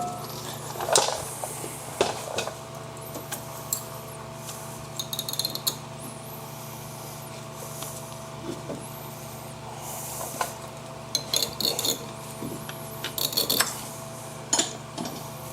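Metallic clicks, scrapes and short rattles of a worn front brake pad being worked off a Jeep Cherokee's caliper bracket, over a steady low hum.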